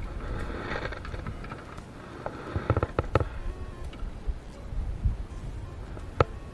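Handling noise from a fishing rod and spinning reel in a small boat: a quick cluster of sharp clicks and knocks about two and a half to three seconds in, and one sharp click near the end, over a steady low wind rumble on the microphone.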